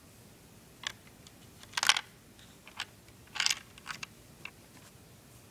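Plastic Lego parts of a homemade candy-dispensing machine clicking and rattling as its lever and mechanism are handled: a few single clicks and two louder clattering bursts, the loudest about two seconds in and another about three and a half seconds in.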